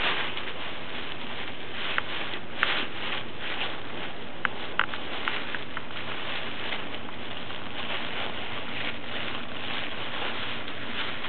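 Bubble wrap crinkling and rustling as small dogs nose, paw and drag it across a carpet, with a few sharp clicks in the first half.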